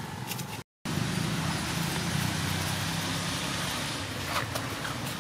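Steady low motor-vehicle engine rumble with road noise, strongest from about one to four seconds in. The sound drops out completely for a split second just before one second in.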